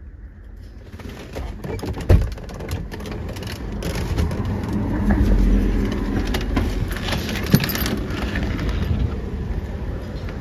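Phone microphone rubbing and bumping as it is carried out of a car, with a sharp knock about two seconds in and another near eight seconds, over outdoor street noise.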